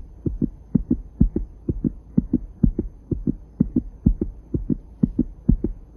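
Human heart sounds heard through a stethoscope at the accessory aortic focus (third left intercostal space beside the sternum). A regular lub-dub: two thumps close together in each beat, at about two heartbeats a second, over a low steady hum.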